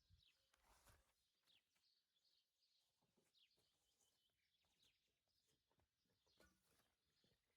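Near silence with faint, scattered bird chirps and a few soft knocks.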